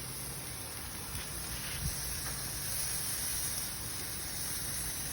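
Burgers sizzling on a grill: a steady hiss, with a couple of faint clicks about one and two seconds in.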